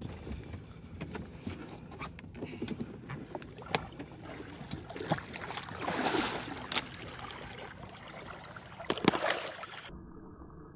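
Water splashing and sloshing against the side of a boat as a sturgeon is held in the river to revive it, with scattered knocks on the boat. Louder splashes come about six and nine seconds in.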